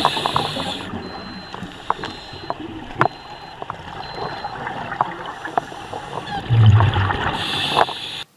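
Scuba diver's regulator breathing underwater, picked up by a camera: a hiss near the start and again near the end, and a loud low rumble of exhaled bubbles about two-thirds of the way through, over steady water noise with a few sharp clicks.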